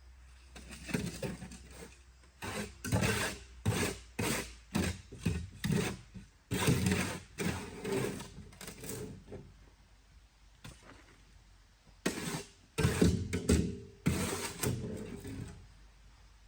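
Hands-on work noise: a run of irregular knocks, clunks and scrapes, as of materials being handled and worked. There are two busy spells with a quieter gap partway through.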